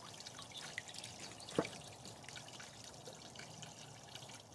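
Pond water trickling and dripping faintly and steadily, with one sharp click about a second and a half in.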